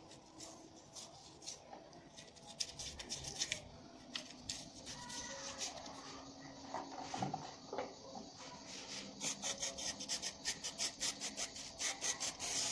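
Hand rubbing and wiping the metal housing of an LPG reducer with a rag. The strokes are faint at first and become a quick run of about four strokes a second in the last few seconds.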